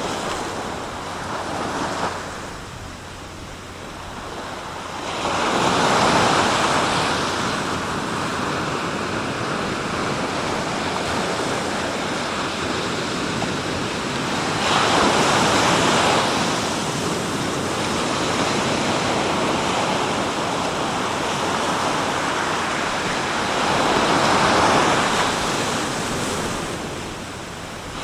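Sea waves breaking on the shore: three louder surges about nine seconds apart, with a steady wash of surf between them.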